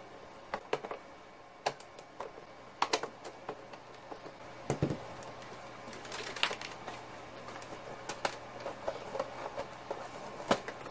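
Screws being turned out of the plastic casing of a Roland TR-505 drum machine and the case being lifted apart and handled: scattered sharp clicks, taps and plastic rattles, with a duller knock about five seconds in.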